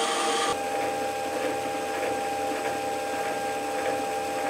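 Metal lathe running steadily with a continuous whine from its drive, turning the connecting rod blank.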